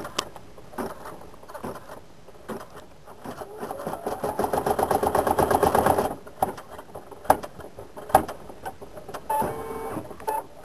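Brother PE770 embroidery machine stitching, a fast needle rhythm that builds from about three seconds in, is loudest just before it stops abruptly about six seconds in. A few sharp clicks follow.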